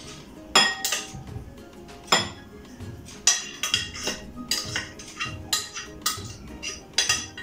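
A utensil clinking and scraping against a glass baking dish as cooked apples are worked out of it into a glass bowl, a series of irregular sharp clinks that come faster after the first few seconds.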